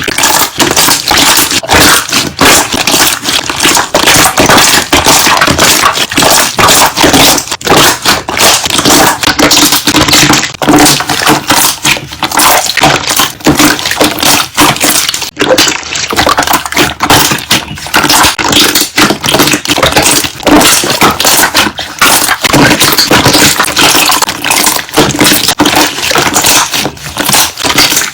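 Slime being worked, its trapped air bubbles popping in a loud, dense stream of rapid crackles and clicks.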